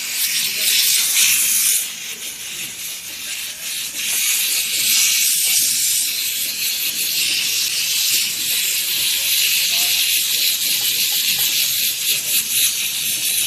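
Goodway dry steam cleaner's nozzle jetting steam with a steady high hiss, easing off briefly about two seconds in before building back up.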